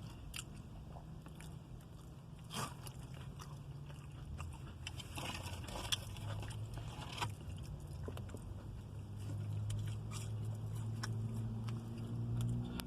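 A person biting and chewing crunchy fried mushrooms: scattered short crunches and clicks over a low steady hum.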